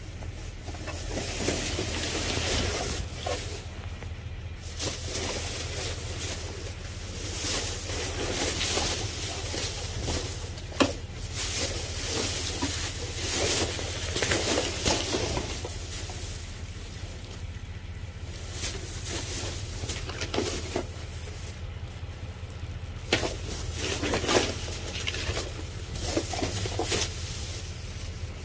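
Plastic bags and trash rustling and crinkling in irregular surges as they are rummaged through, with a few sharp clicks. A steady low hum runs underneath.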